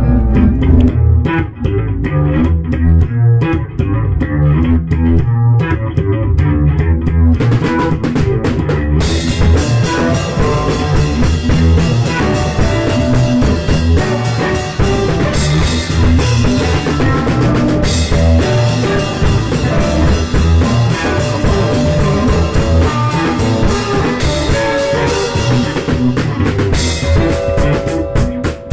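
A band's song with a drum kit and guitar. It sounds muffled for roughly the first eight seconds, with the treble cut, then opens up to full brightness about nine seconds in.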